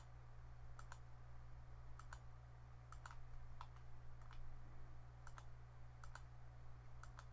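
Faint computer mouse clicks, mostly in quick pairs about once a second, as objects are picked on screen, over a steady low hum.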